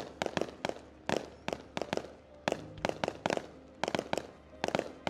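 Aerial fireworks going off in quick succession: a string of sharp bangs, several a second, each trailing a short echo.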